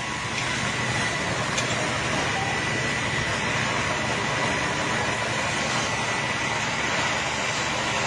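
Steady, even rushing noise at a building fire being fought with a hose stream, with an engine running under it. A faint steady high tone runs through it.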